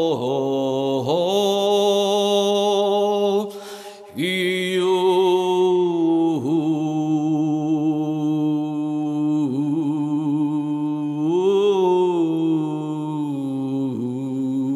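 A person's voice toning long, sustained chant-like notes, the pitch dipping and rising slowly between held tones, with one pause for breath about four seconds in.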